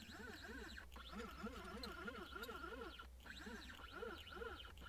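Stepper motors of a 3018 mini CNC router jogging the axes in short repeated moves to position the spindle for setting the home position. Each move is a faint whine that rises and falls in pitch, about four a second, with a couple of brief pauses.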